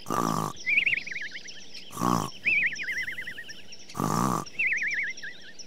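Cartoon wolf snoring, three snores about two seconds apart. Each is a short rasping snore followed by a wavering whistle.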